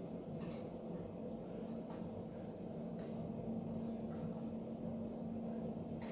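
Steady low hum with a few faint, scattered clicks of hand-tool work on the engine's distributor mounting.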